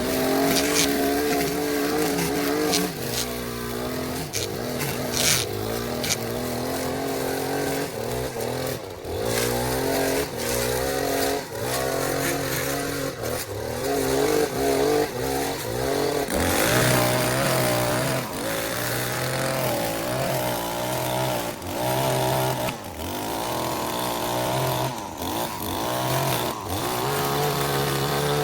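Small petrol engine of lawn equipment running continuously, its pitch rising and falling as the load changes while it cuts, with a few sharp clicks in the first few seconds.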